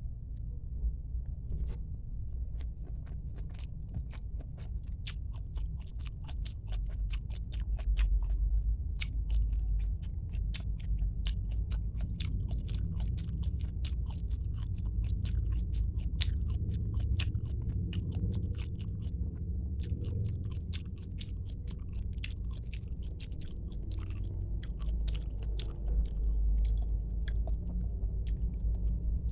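Close-miked chewing and biting of squid: many quick, irregular mouth clicks over a low rumble.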